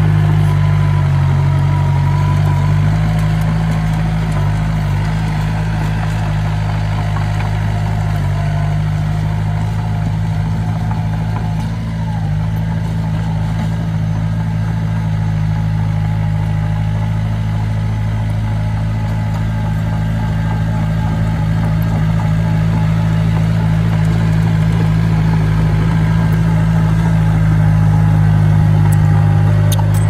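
Small crawler bulldozer's diesel engine running steadily under load as the dozer pushes and spreads dirt with its blade.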